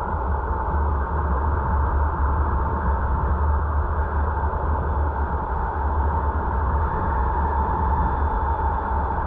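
A car driving at a steady speed, heard from the dashcam: a steady low road rumble with tyre and wind noise and a constant hum.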